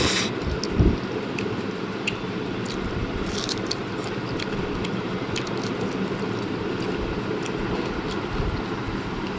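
Steady low rumbling background noise with a few faint light clicks and a dull thump about a second in.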